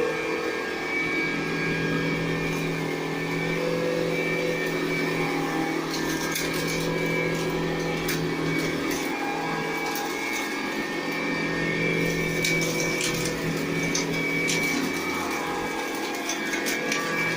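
Montgomery Ward upright-style vacuum cleaner running steadily with an even motor hum, with scattered ticks and crackles in the second half.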